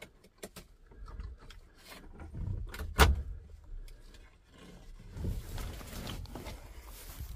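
Scattered clunks, scrapes and rustling from someone moving about in a truck cab, with one sharp knock about three seconds in.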